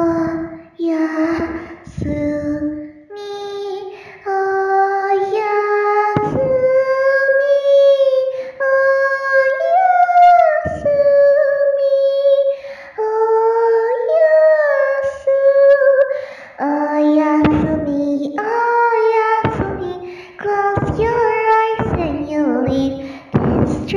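A single high singing voice carrying a melody, with no clear words. The notes are short at first, then held long and high through the middle, then broken into shorter phrases near the end, in the echo of a hallway.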